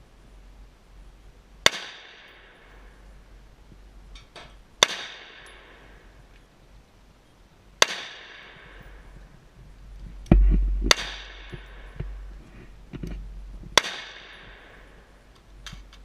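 Five AR-15 rifle shots in .223, about three seconds apart, each with a trailing echo: shots at the Tannerite target that do not set it off. A low rumble comes just before the fourth shot.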